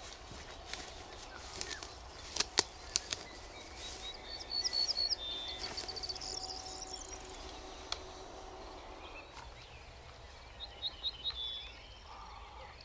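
Small birds chirping in short quick runs of high notes, twice, over the rustle of tall grass as a person walks through it. A few sharp clicks about two and a half seconds in.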